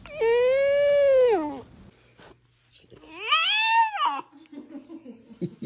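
Puppy yawning twice, each yawn a squeaky whine: the first held then falling away, the second rising and falling.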